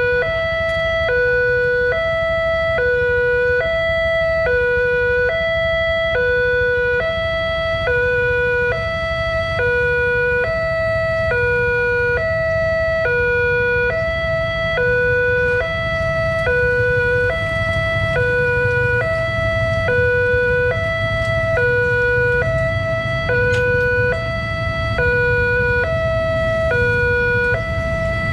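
Railway level crossing warning alarm sounding a steady two-tone electronic chime. A lower and a higher tone take turns, each lasting about half a second, over a low rumble.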